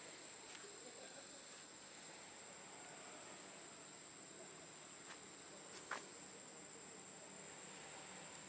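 Faint steady high-pitched insect drone over a quiet background, with one sharp click about six seconds in.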